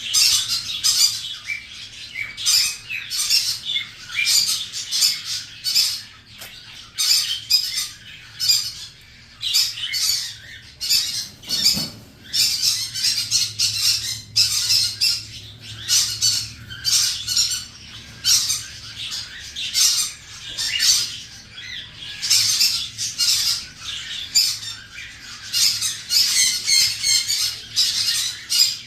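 Cockatiels squawking over and over, a near-continuous string of short, harsh calls.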